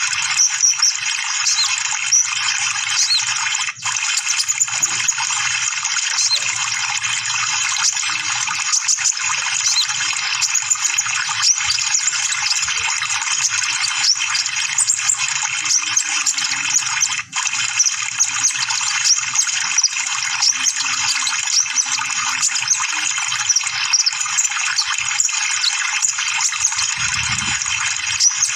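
Dense, rapid, non-stop high twittering and chirping of sunbirds (kolibri ninja), a bait recording ('pancingan') meant to spur a caged bird into song. It breaks off very briefly twice.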